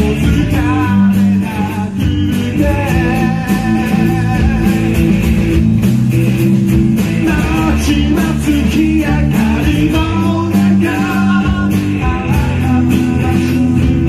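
Live band playing a ballad-rock song through a club PA: a male singer over strummed acoustic guitar and electric guitar, heard from the audience floor.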